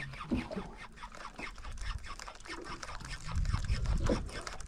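Spinning reel being cranked fast to work a jig, giving a quick run of ticks.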